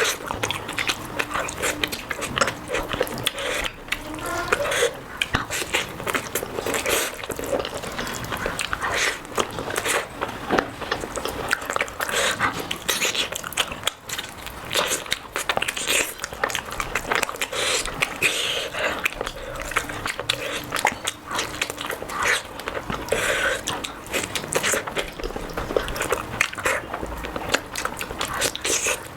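Close-miked sounds of a person eating: wet chewing and mouth smacks, with frequent small clicks.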